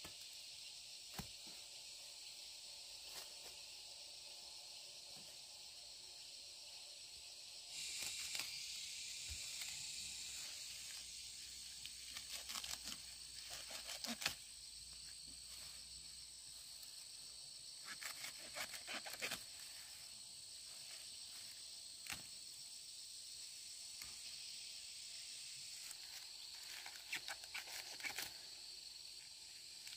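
Steady high-pitched chirring of insects, with several short bunches of clicks and rustles from something being handled.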